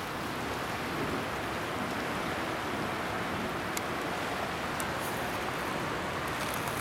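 Steady rushing of a fast-flowing river's current, with a couple of faint clicks around the middle.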